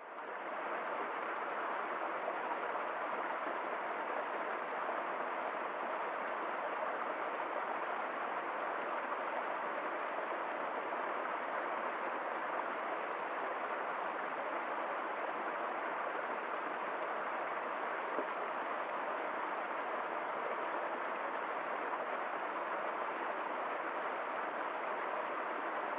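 Stream flowing, a steady, even rush of running water that fades in over the first moment.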